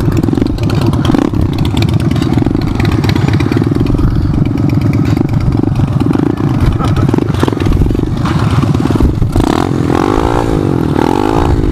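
SSR pit bike's small single-cylinder four-stroke engine running under throttle as it is ridden, heard close up from the rider's helmet. Near the end the engine note swings up and down repeatedly as the throttle is worked.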